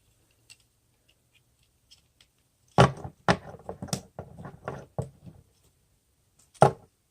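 Plastic parts of a transforming robot action figure clicking and knocking as they are handled and tabbed into place: a cluster of sharp clicks about three seconds in, and one more near the end.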